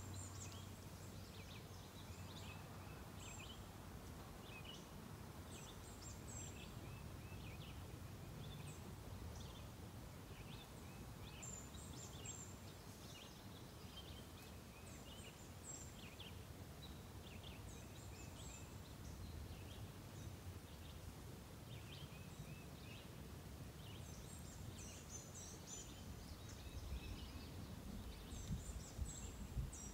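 Faint outdoor ambience of small birds calling and singing in short chirps throughout, over a low steady rumble, with a few low knocks near the end.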